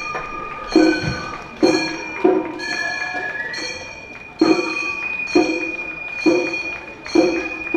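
Gion-bayashi festival music from the Funeboko float: small brass kane gongs struck with ringing clangs about once a second, over a high, sustained bamboo flute melody.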